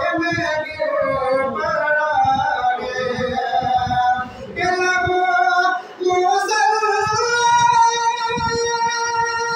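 A man singing an unaccompanied Islamic devotional song into a microphone, his voice winding through ornamented phrases. About six seconds in he settles on one long held note.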